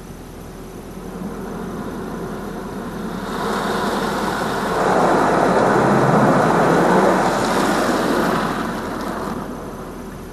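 High-pressure water spray from a touchless LaserWash gantry hitting the car's roof and windshield, heard from inside the cabin: a hiss that swells over a few seconds, is loudest in the middle, and fades as the arm moves past.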